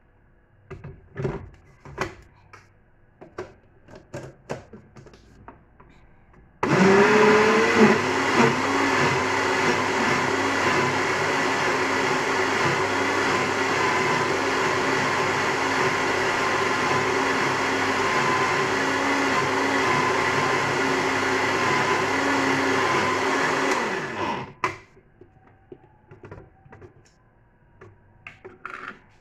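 Countertop electric blender puréeing jameed: the motor starts about seven seconds in, runs steadily and loudly for about eighteen seconds, then cuts off suddenly. Before and after it, a few knocks of the plastic jar being set on and lifted off the base.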